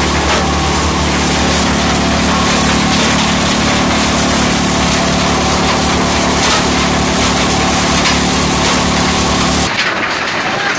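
Stone-crushing plant machinery running: a vibrating grizzly feeder shaking a load of broken stone, over a steady low hum from the plant's motors. The low hum cuts off suddenly near the end.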